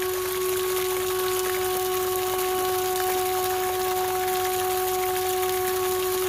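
One long, steadily held flute note from the background music, over the constant rush of spring water pouring from a spout.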